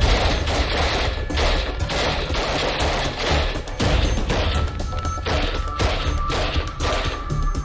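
An IWI Negev NG-7 light machine gun in 7.62×51mm firing repeated shots in quick succession over background music with a heavy low beat.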